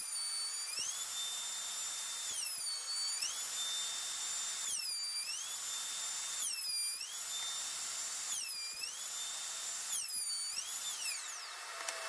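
Table-mounted wood router running with a high whine. Its pitch dips and recovers about five times as the bit cuts the end of a rail held in a coping sled, then it winds down near the end.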